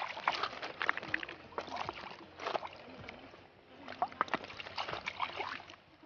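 A hand sweeping and splashing through shallow river water over cobbles, a run of irregular short splashes and sloshes with a brief lull a little past halfway.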